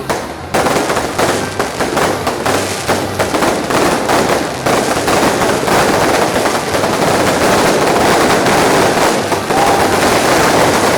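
Fireworks going off in a dense, rapid string of sharp cracks and pops, starting about half a second in.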